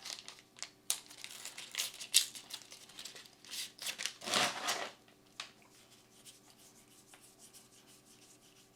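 Foil trading-card booster pack being torn open and its wrapper crinkled: a run of crackling rustles, loudest about four seconds in, stopping about five seconds in.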